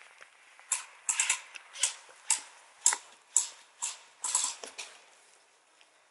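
Airsoft gun fired in single shots: about ten sharp pops at uneven spacing of roughly half a second, ending about two thirds of the way in.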